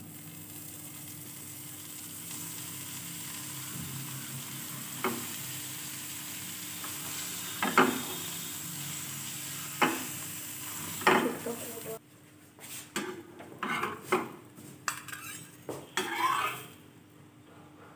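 Butter sizzling under bread sandwiches toasting in a frying pan, with a few sharp knocks against the pan. About twelve seconds in the sizzling stops abruptly, followed by scraping and clattering as a metal spatula lifts the sandwiches from the pan.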